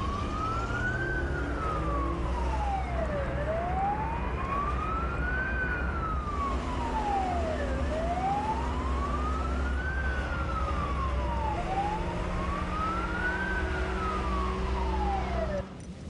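Fire engine siren wailing, rising and falling slowly about every four and a half seconds, over the low rumble of the truck's engine; it cuts off suddenly near the end.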